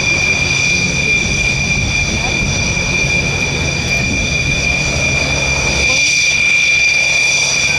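Dassault Rafale's twin turbofan jet engines running at taxi power: a steady high-pitched whine of several held tones over a low rumble. The rumble drops away about six seconds in.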